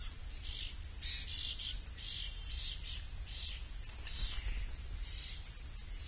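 Birds at an outdoor feeder giving a rapid run of short, harsh calls, about two a second, over a steady low hum.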